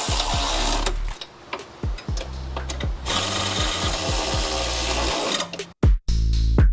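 A handheld power tool, such as a cordless drill or ratchet, runs in two long stretches while parts are fastened. Under it plays background music with a deep sliding bass and a drum beat.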